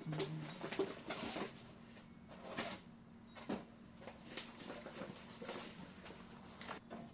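Handling sounds of computer hardware being fitted into a PC case, most likely the power supply: a string of light knocks, clicks, scrapes and rustles at irregular intervals over a faint steady hum.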